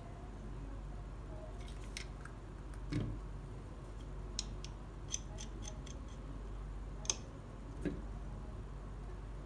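Plastic parts of a toy telescope kit clicking and knocking as they are handled and set down on a table: scattered sharp clicks, with a duller knock about three seconds in and another near the end, over a low steady hum.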